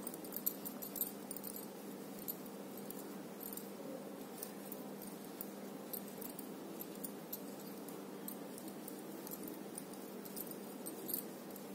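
Light, scattered metallic clicks and jingles from metal bangles on the wrists of hands working a crochet hook, over a steady low hum.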